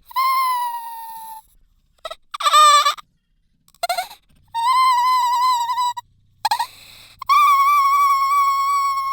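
A man's exaggerated, comedic crying sound effect: high-pitched wailing, three long held wails with short sobbing gasps between them.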